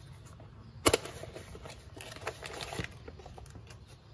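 Hands handling brake caliper seal kits, rustling plastic bags and a small cardboard box with light clicks and crackles, and one sharp tap a little under a second in.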